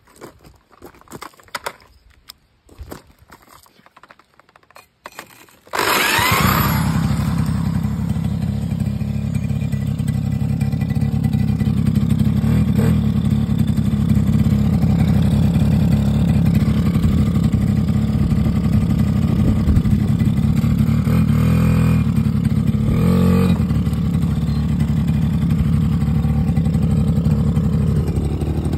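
Suzuki LT50's small 49cc two-stroke single-cylinder engine being started: a few seconds of scattered knocks and clatter, then it catches suddenly about six seconds in. It then runs steadily, loud and buzzy.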